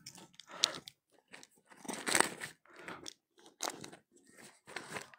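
Close, irregular crunching and crackling: a string of short crunches about every half second, the loudest a little past two seconds in.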